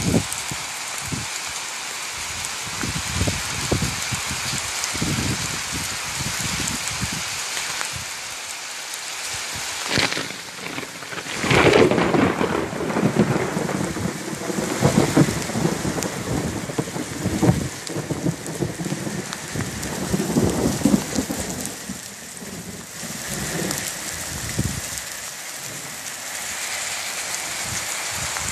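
Heavy rain falling steadily. About twelve seconds in it grows louder, with a low rumble that lasts about ten seconds before easing.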